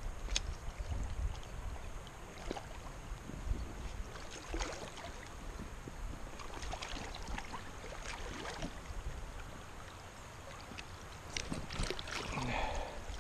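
Shallow river water sloshing and trickling around a wading angler's legs, with scattered small splashes.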